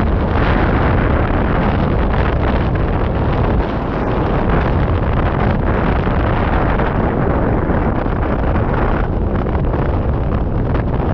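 Wind rushing over the microphone of a camera mounted on a hang glider in flight: a loud, steady roar of airflow buffeting the mic.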